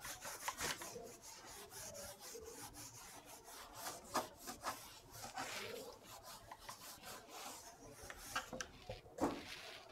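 Whiteboard eraser rubbing across a whiteboard, faintly, in uneven wiping strokes as marker writing is wiped off.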